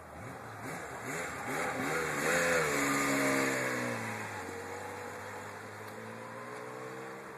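Honda CBX's inline six-cylinder engine revving up, its pitch rising and wavering about two seconds in, then dropping back and holding a steadier, lower note as it gets gradually quieter.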